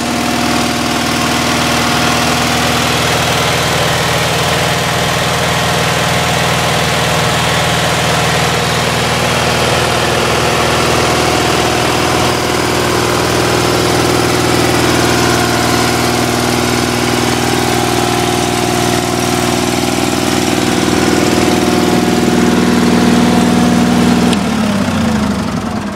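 Sears SS/16 garden tractor's Onan 16 hp twin-cylinder engine idling steadily after a warm start, with a slight valve tick that the owner places at the front cylinder. Near the end it is switched off at the key and runs down, its pitch falling.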